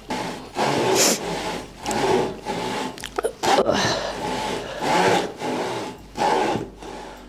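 Wooden-framed bow saw cutting across a freshly felled log, its toothed blade rasping through the wood in steady back-and-forth strokes.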